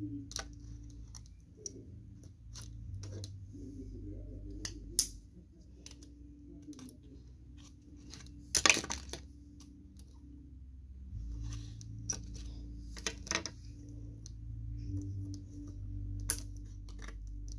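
Small plastic Klikbot toy parts clicking and clattering as they are handled and snapped together, in scattered light clicks with a louder clatter about halfway through.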